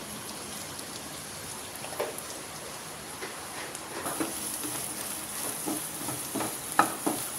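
Chopped dried shrimp and garlic sizzling in a wok, with a wooden spatula scraping and knocking against the pan as the mixture is stirred from about four seconds in; the sharpest knock comes near the end.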